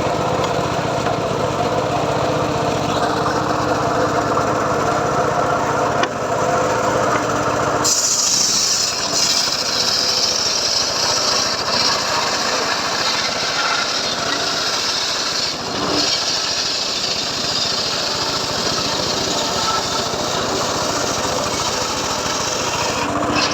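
Homemade circular saw rig running steadily, then about 8 seconds in its blade cuts into a teak log with a loud, high hiss over the motor's hum, which drops away just before the end.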